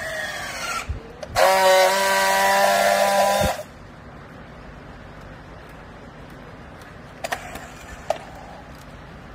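Battery-powered handheld strapping tool working a plastic strap: its motor whines and drops in pitch as it pulls the strap tight. It then gives a loud steady buzz for about two seconds as it friction-welds the strap's seal. A couple of sharp clicks follow near the end.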